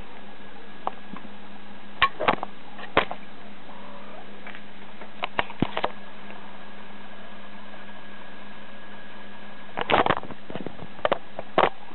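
Handling noise from a handheld camera: scattered soft clicks and knocks, with a louder cluster about ten seconds in, over a steady faint hum.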